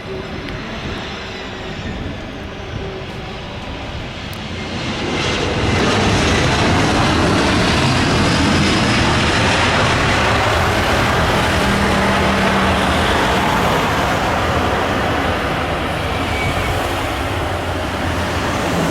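Jet engines of an Airbus A320-214 (CFM56 turbofans) on landing. The engine noise rises sharply about five seconds in and stays loud.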